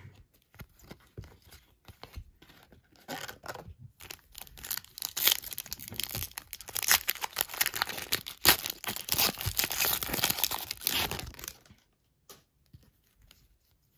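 A wrapped trading-card pack being torn open, its wrapper crackling and crinkling in a dense run that starts about four seconds in and stops a few seconds before the end. Before it, only light rustling of cards being handled.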